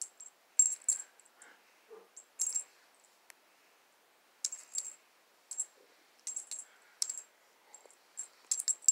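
A cat toy's small bell jingling in a string of short rattles as a cat bats and plays with it.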